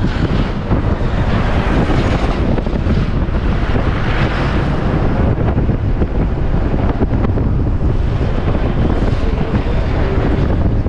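Steady rush of wind over the microphone from a moving bus, with the bus's engine and road noise running underneath.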